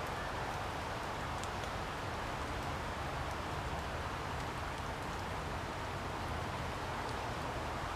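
Steady rain falling on willow foliage, an even hiss with a few faint scattered drop ticks.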